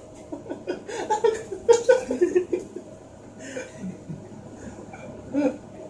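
A man laughing in a run of short chuckles during the first two and a half seconds, then quieter, with one more short burst near the end.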